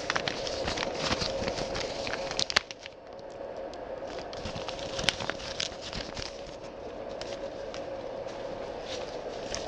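Crackling rustle and handling noise on a body-worn camera's microphone, dense at first and then thinning to scattered clicks after a sharp knock about two and a half seconds in, over a steady hum.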